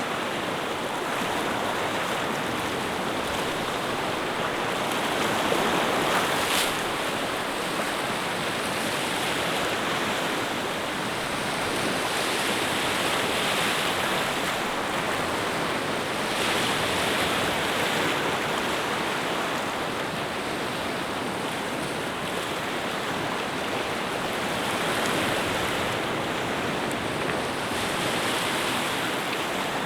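Waves washing in continuously, swelling and easing every few seconds.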